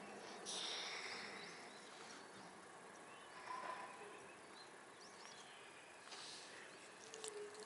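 Faint outdoor ambience with a few short, distant bird chirps and a brief rustle about half a second in.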